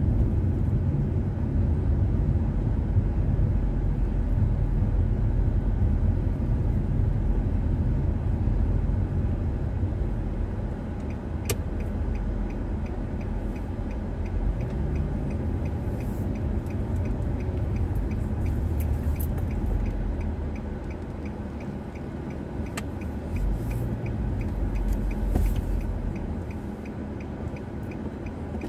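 Car interior while driving, with the steady low rumble of engine and road noise. About a third of the way in, a turn-signal indicator starts ticking evenly and keeps on. The rumble gets quieter after about twenty seconds.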